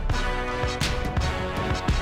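Background music with a steady drum beat over sustained tones.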